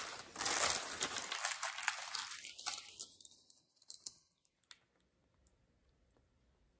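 Paper takeout food packaging being handled, crinkling and rustling with many small clicks, dying away about three seconds in, then a couple of single clicks.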